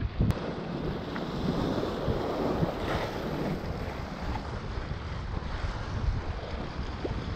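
Strong wind buffeting an action camera's microphone: a continuous rushing noise with gusty low rumble, and a single sharp click near the start.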